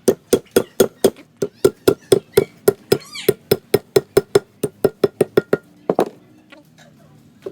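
Rapid, even hammer blows on metal or wood, about four a second, stopping about six seconds in. A brief high chirping call cuts across them about three seconds in.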